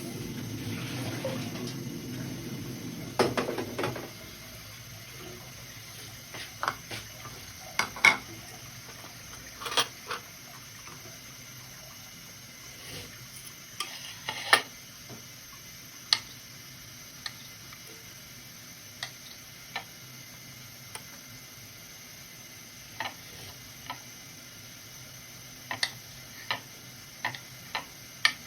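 Kitchen clatter: water runs from a tap for the first few seconds, then dishes and utensils clink and knock now and then at irregular intervals.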